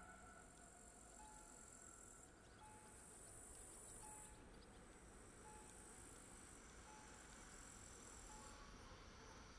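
Faint summer outdoor ambience: insects chirring high-pitched, swelling and fading in stretches of a second or two, with a faint short beep repeating about once a second.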